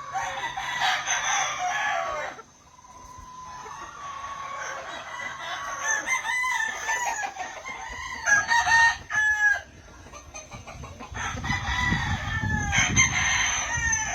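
Gamefowl roosters crowing in several separate bouts, one after another and sometimes overlapping, with clucking among them.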